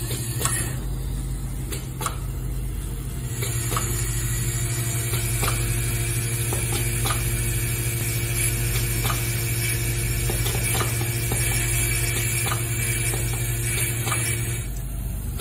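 Vibratory bowl feeder running with a steady electromagnetic hum, small parts rattling and clicking irregularly as they travel along the bowl track. A higher whine joins about three seconds in and stops shortly before the end.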